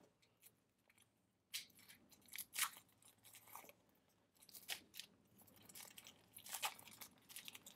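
Clear plastic wrapping being peeled off a Zelfs toy capsule by hand: faint, scattered crinkles and crackles.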